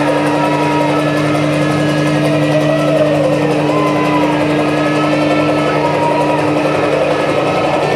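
Steady, loud engine drone, a recorded vehicle sound effect played over loudspeakers, with long wavering cries from several people over it.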